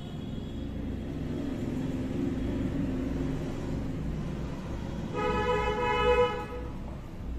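Low traffic rumble, with a vehicle horn sounding once for about a second, around five seconds in.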